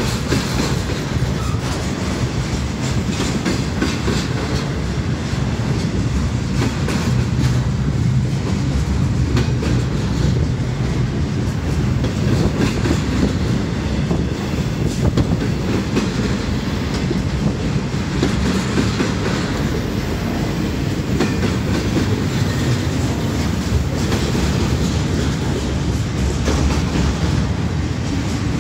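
Double-stack intermodal well cars of a freight train rolling past: a steady, loud low rumble with rapid wheel clicks over the rails.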